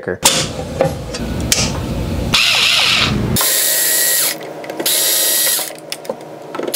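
Cordless electric screwdriver running in two short bursts of about a second each, with a steady motor whine, backing out the screws of a wall switch plate. Before the bursts there is a rougher, noisier stretch of mechanical sound.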